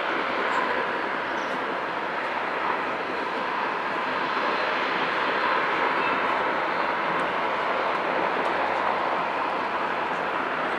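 Bombardier Dash 8 Q400 turboprop airliner's engines running as it rolls slowly along the runway after landing: a steady, even rush of noise.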